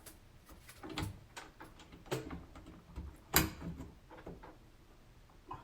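Plastic smoke alarm being twisted clockwise onto its mounting base and snapped into place: a few scattered plastic clicks and knocks, the loudest about three and a half seconds in.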